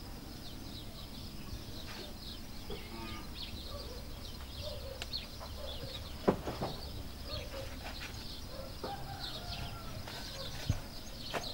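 Small birds chirping continuously and chickens clucking now and then, with a sharp slap about six seconds in and a few lighter knocks near the end.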